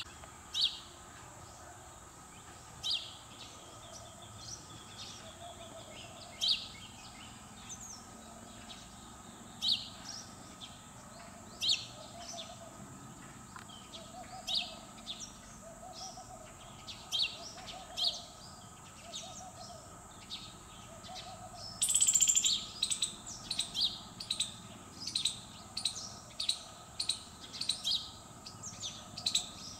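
Birds calling: sharp high chirps every second or two, with soft low hoot-like calls repeating about once a second through the middle. About two-thirds of the way through, a louder, denser burst of chirping sets in and goes on to the end.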